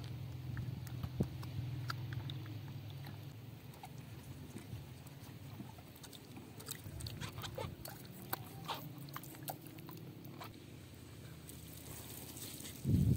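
Vegetables being rubbed and turned by hand in steel bowls of water: small wet splashes and clicks of produce against the metal. Near the end comes a louder splash as the wash water is poured out of the bowls onto the ground.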